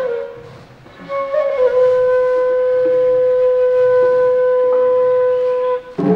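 Flute music: after a brief lull, a flute slides down slightly onto one long held note lasting about four seconds. A short percussive hit comes near the end.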